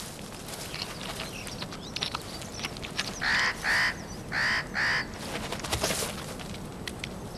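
Wolf tearing and chewing at a carcass, with small wet clicks and crackles throughout. About three seconds in, a bird gives four harsh honking calls in two quick pairs.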